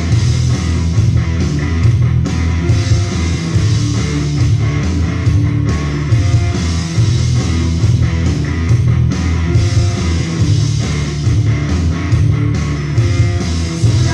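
Loud recorded music with a steady beat, heavy bass and guitar, played over a sound system.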